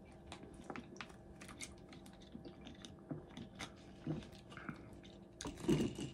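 Quiet mouth sounds of drinking from a plastic water bottle and swallowing: scattered small clicks and smacks, with a louder cluster near the end.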